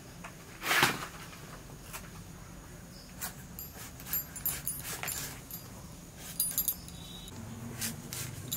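Elephant foot yam being sliced against a boti blade: a few separate crisp cutting strokes, the loudest just under a second in and softer ones after.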